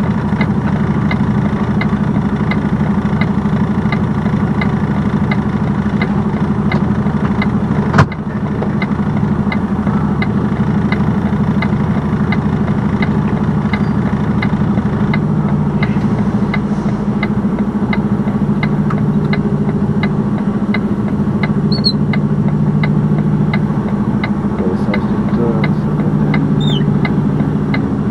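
Semi-truck diesel engine idling steadily, heard from the cab, with a light regular tick about every two-thirds of a second over it. A single sharp knock about eight seconds in.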